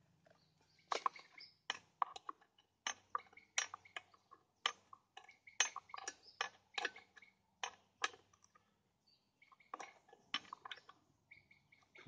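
Sharp metallic clinks and clicks, a dozen or so at irregular intervals, from chainsaw bar and chain parts being handled and fitted, with faint bird chirps behind.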